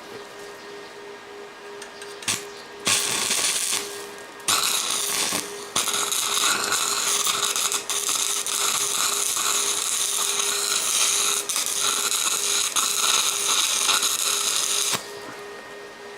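Electric arc welder crackling and hissing as it lays weld into a cut gap in a broken steel machete: two short bursts, then a steady run of about nine seconds that cuts off near the end. A steady low hum runs underneath.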